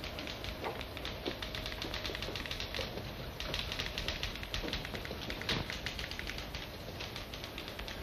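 Crackle and hiss of an old film soundtrack: a steady hiss with a dense spray of tiny irregular clicks, and a few faint knocks.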